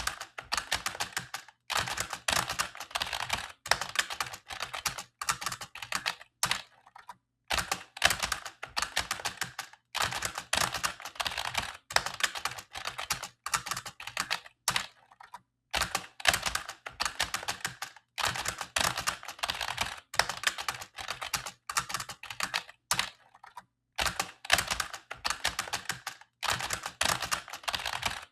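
Old computer keyboard being typed on: rapid runs of key clicks in bursts of a second or two, broken by short pauses.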